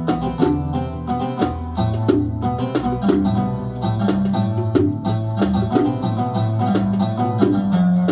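Yamaha PSR-A5000 arranger keyboard playing a melody over a Gulf 'sawt' rhythm style, with mirwas hand-drum percussion and a bass line keeping a steady beat.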